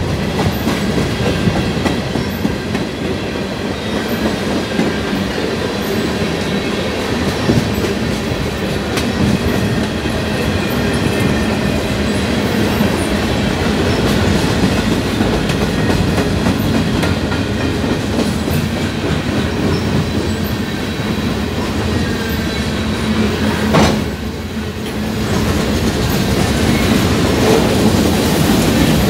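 Freight train cars rolling past at trackside: steel wheels clattering and clacking over the rails in a continuous rumble as tank cars, covered hoppers and gondolas go by. Late on, a single sharp click comes with a brief drop in level before the clatter builds again.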